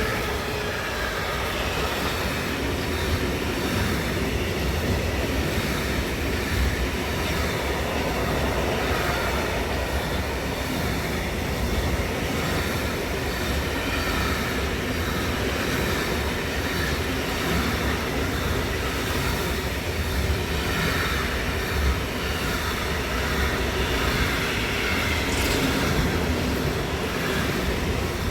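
A train passing close by: a steady, continuous rush of wheels rolling on the rails that carries on without letting up.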